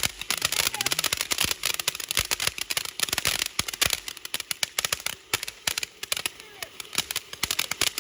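Fireworks going off in a rapid, dense string of sharp crackling pops, many a second without a break.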